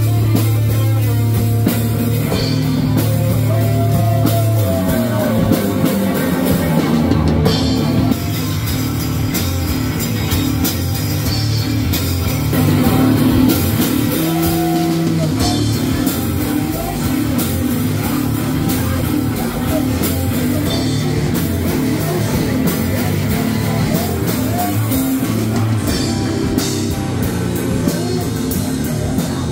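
Live rock band playing: electric guitar, bass guitar and a drum kit with cymbals, heard from on stage close to the drums.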